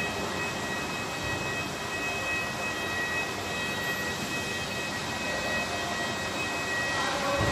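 Steady background noise with a few faint, steady high-pitched tones running through it, and no shot or impact.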